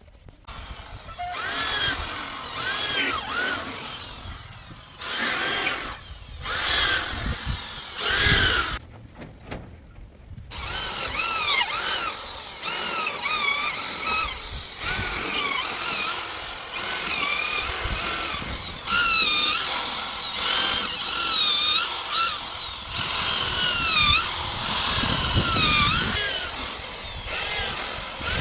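Handheld power drill whining in repeated short pulses, its pitch rising and falling each time the trigger is squeezed and let go, with a short pause partway through.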